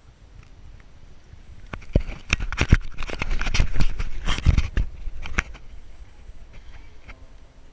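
Handling noise on a small camera's microphone as it is jostled: a burst of close knocks, rubbing and rustling with a deep rumble, lasting about three seconds in the middle, over faint chair and clothing sounds as people take their seats.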